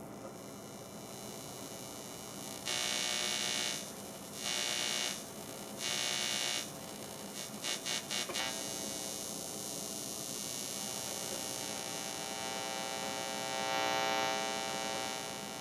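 Electronic buzz and hum from an audio mixer, with many steady overtones. Three blasts of hiss, each about a second long, come a few seconds in, followed by a quick stutter of short pulses; the buzz swells again near the end.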